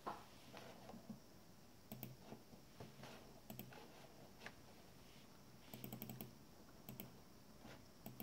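Faint, scattered clicks of a computer keyboard and mouse being used, with a quick run of keystrokes about six seconds in.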